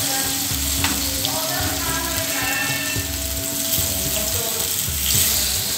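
Tomato slices sizzling in hot oil in a frying pan, a steady frying hiss, while a spatula turns them, with a short click about a second in.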